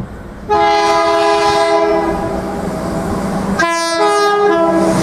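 Horn of a Countrylink XPT power car sounding as the train approaches. A long chord of several tones starts about half a second in, breaks off briefly about three and a half seconds in, then sounds again, with the train's running noise growing beneath it.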